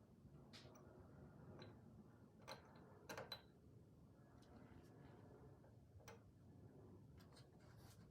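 Near silence: faint room tone with a few scattered light ticks and clicks.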